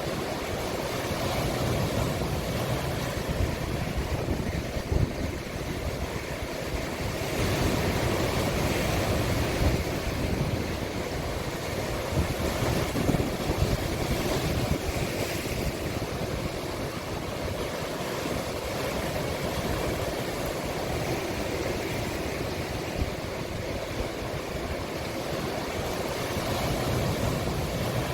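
Sea waves breaking and washing in a small cove, a steady surf noise that swells as waves come in, with wind buffeting the microphone.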